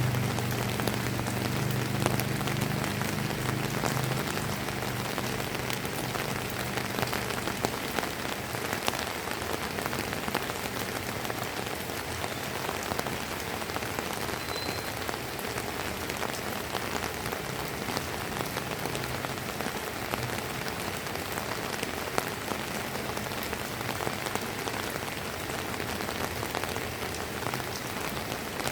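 Steady drizzling rain: an even hiss dotted with the taps of single drops landing. A low hum underneath fades out in the first few seconds.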